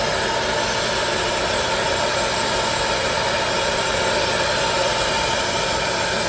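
Hot-air popcorn popper used as a heat gun, its fan motor running steadily and blowing a constant rush of hot air with a steady hum, to soften the tablet's screen adhesive.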